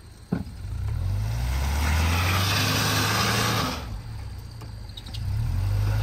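Subaru Outback's boxer engine revving hard as the stuck wagon's wheels spin in mud, trying to climb out of a mud hole. It runs for about three seconds, eases off, then revs up again near the end. A short knock comes just before the first rev.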